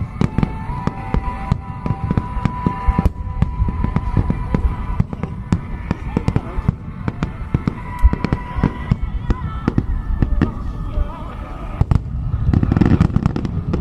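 Aerial fireworks bursting in quick succession: a dense string of sharp bangs and crackles, building to a heavier, fuller burst near the end.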